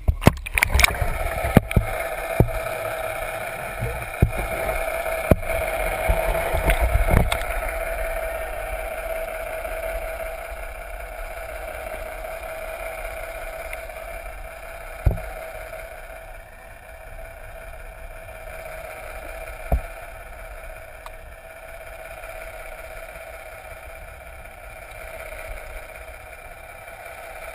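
A boat's engine heard underwater through a submerged camera: a steady drone that slowly fades. Sharp clicks and knocks come in the first seven seconds, and two single knocks follow later.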